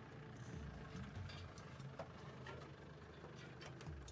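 Open safari game-drive vehicle's engine running low and steady, with scattered light clicks and ticks.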